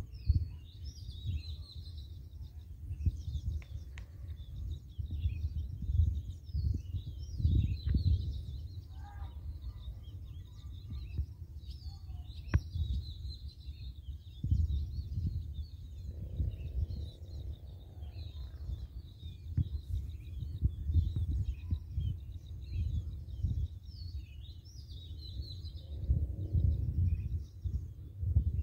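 Many small birds chirping and twittering in quick, short calls, over a low, uneven rumble of wind on the microphone.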